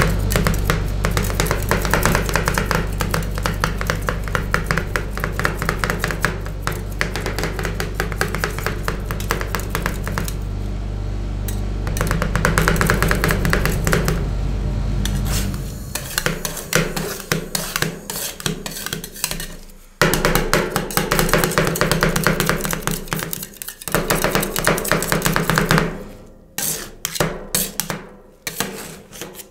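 Two metal spatulas rapidly chopping and scraping rolled ice cream base on a steel cold plate, a fast run of clacks and taps. A steady low hum, likely from the machine's refrigeration, stops about halfway through, and after that the chopping comes in runs with short pauses.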